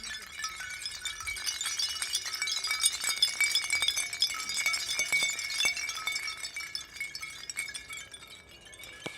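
Foley effect of dense glassy tinkling: many small chime-like rings and clinks overlapping, swelling about three to five seconds in, then thinning out.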